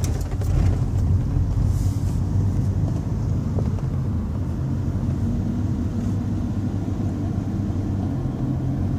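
Car interior while driving: steady low rumble of engine and road noise with no sharp events.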